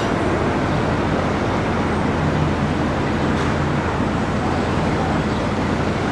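Narrowboat's diesel engine running steadily at low revs: a low drone under a constant rushing noise.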